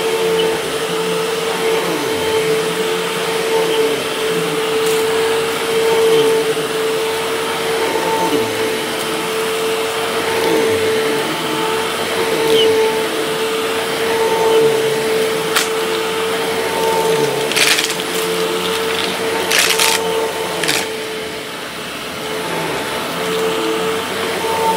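Vacuum cleaner running steadily on a rug, a constant motor hum with a whine above it and a rush of suction air. A few short, sharp crackles come in between about fifteen and twenty-one seconds in.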